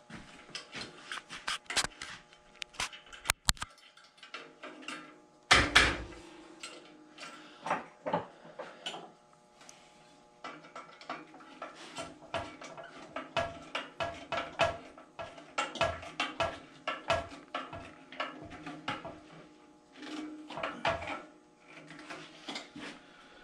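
Irregular metal clicks, clanks and knocks of hand tools and bandsaw parts being handled and bolted back on, with one louder knock about six seconds in.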